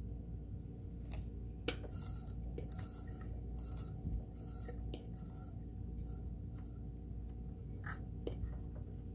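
Small clicks and taps of hands handling a plastic oil bottle around the open mechanism of a Kenmore sewing machine, oiling its moving parts. A run of short hissy scrapes with a faint squeak comes about every half second in the middle. A steady low hum lies under it all.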